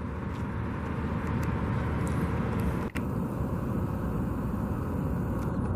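Steady outdoor traffic rumble from passing road vehicles, briefly cutting out about three seconds in.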